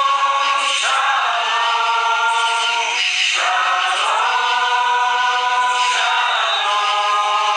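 Background music of a choir singing long held chords, the chord changing about a second in, again about three seconds in, and near six seconds.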